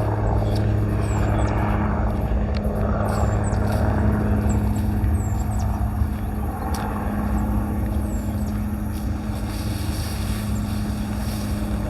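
A steady low mechanical hum, like a motor running, with faint short high chirps scattered over it.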